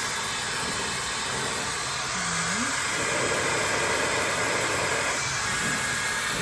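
GUGUG 110,000 RPM high-speed hair dryer running without its nozzle, blowing air: a steady rushing hiss with a thin high whine, a little louder from about two seconds in.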